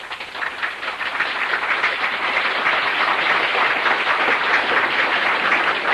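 Audience applause, swelling over about the first second and then holding steady as dense, even clapping.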